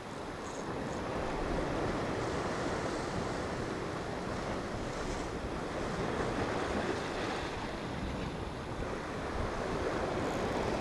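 Sea waves breaking and washing over shoreline rocks, with wind buffeting the microphone.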